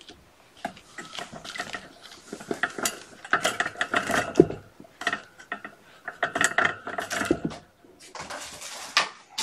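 Cat food dishes clattering and clinking as they are picked up and handled, in quick irregular knocks.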